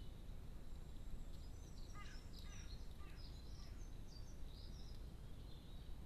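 A small songbird chirping in a run of short, high notes from about a second in until near the end, over a steady low outdoor rumble.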